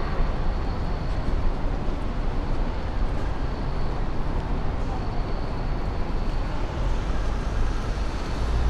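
Steady city traffic noise: a constant low rumble and hiss of vehicles on the road below.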